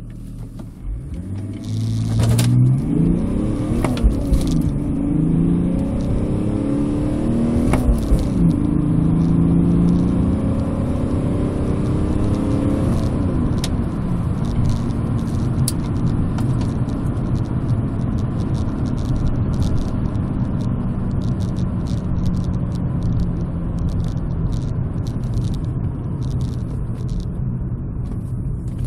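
BMW 325tds's 2.5-litre turbodiesel straight-six, heard from inside the cabin, accelerating hard through the gears. Its note rises, drops at gear changes about four and eight seconds in, and climbs again. From about thirteen seconds in, the car cruises steadily at speed with road and wind noise.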